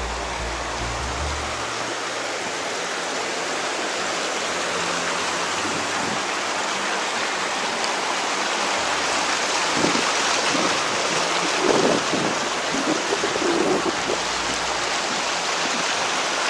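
Steady rushing noise of flowing water, like a mountain stream, growing slightly louder. Background music fades out about two seconds in, and a few low bumps come near the end.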